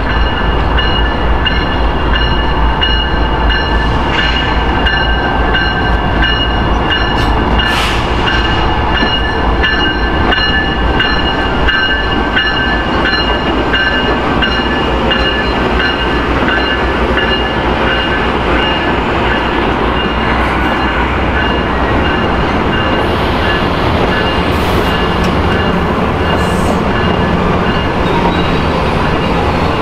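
Amtrak passenger train led by a Siemens Charger diesel locomotive running past: a steady low diesel rumble and the continuous rolling noise of steel wheels on rail, with a few thin, steady high squealing tones over it.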